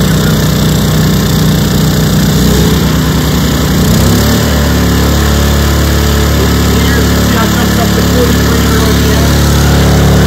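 Two Honda EU2000i inverter generators running together in parallel in eco mode: a loud, steady engine hum whose tone shifts about four seconds in.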